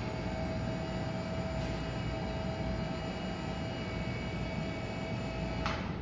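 Commercy Soudure PM 250 welding positioner's electric drive running, slowly turning its three-jaw chuck: a steady whine that cuts off with a click near the end.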